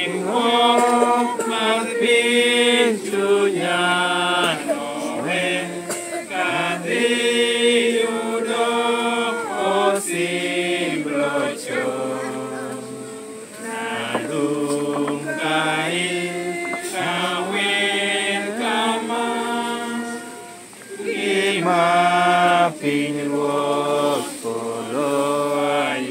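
A group of mourners and clergy singing a funeral hymn together at a graveside, unaccompanied, in long held notes with short breaks between phrases.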